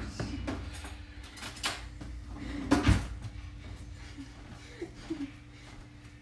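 Wooden spoon scraping and knocking against a nonstick frying pan while stirring meatballs and peppers, with a handful of short knocks and one louder knock about three seconds in.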